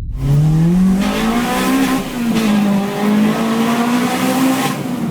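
Car engine accelerating hard: its pitch climbs over the first two seconds, then holds high with small dips and rises, loud and steady throughout.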